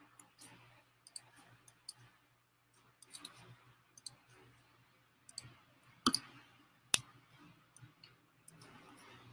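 Computer mouse clicks: a dozen or so irregular sharp clicks, the two loudest about six and seven seconds in, over a faint steady hum.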